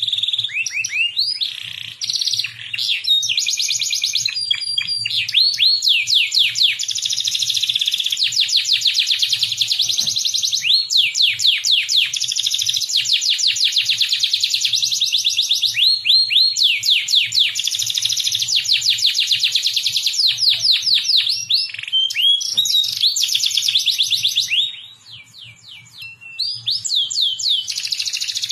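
Domestic canary singing a long, continuous song of fast trills and rolls, built from rapid series of repeated downward-sweeping notes, with a short break about 25 seconds in.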